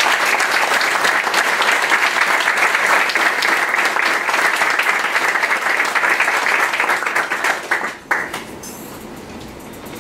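Audience applauding with dense, steady clapping that dies away about eight seconds in.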